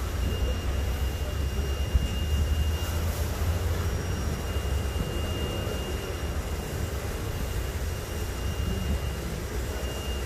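Steady low rumble and hiss of machinery and water-spray equipment in a tiled car-wash hall, with a thin high whine that comes and goes.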